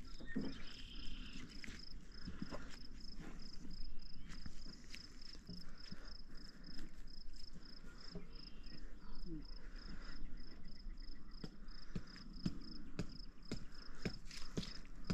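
Insect chirping steadily, a high-pitched pulse repeating about three times a second. Under it are scattered light clicks and rustles of fishing line being wrapped around a bait fish.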